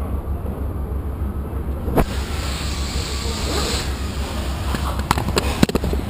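Kawasaki W650's parallel-twin engine running with a steady low throb. A sharp clunk comes about two seconds in, after which a rushing noise grows louder, and a string of sharp clicks and knocks comes near the end.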